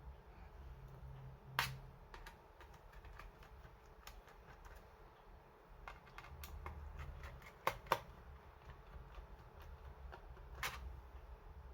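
Scattered light clicks and taps of hands handling a laptop's casing and small parts, with four sharper clicks: one about a second and a half in, two close together near eight seconds, and one near the end.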